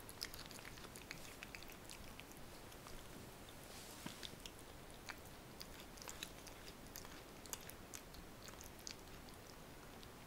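A cat chewing raw lamb liver, close up: small, irregular clicks and smacks of its teeth and jaws, thinning out near the end.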